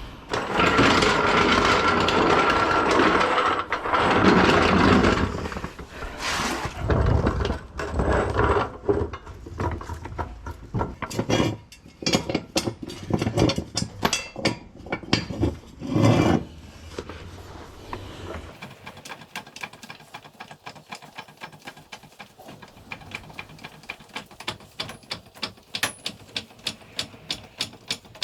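Workshop tool work on a van's front end. First comes a few seconds of loud, noisy tool sound, then a long spell of scattered metal knocks and clatter. After that comes a steady run of quick, evenly spaced clicks, a few each second.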